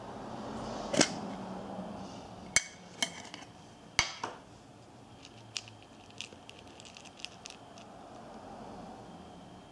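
A metal tin of JSB Straton Jumbo Monster lead airgun pellets being handled and opened, making a few sharp metallic clicks and clacks. Then lighter clinking as fingers stir through the pellets in the tin.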